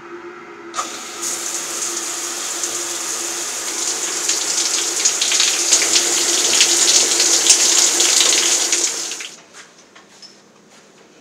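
Handheld shower head spraying water, turned on about a second in, getting louder partway through, and shut off abruptly near the end.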